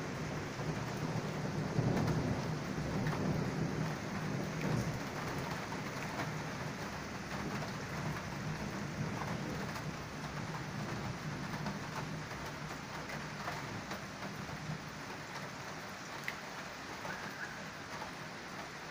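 Steady rain with low, rolling thunder rumbling through it. The thunder is loudest about two seconds in and again around five seconds, then dies down under the rain.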